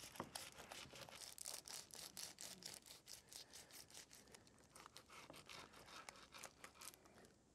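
Serrated bread knife sawing back and forth through aluminium foil and a chilled crab-cake log, a faint quick rasp about five strokes a second that grows fainter and stops near the end.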